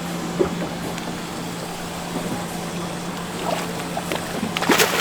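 Boat's engine running with a steady low hum under wind and water noise, with a light knock about half a second in and a few sharper knocks near the end.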